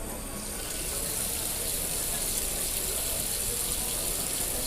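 Steady rushing hiss of running water, starting abruptly at the beginning.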